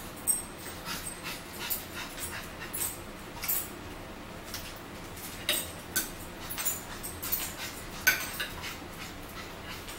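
Close-up eating sounds: wet chewing and lip-smacking with light clicks of a fork on a plate, in a string of short, irregular smacks.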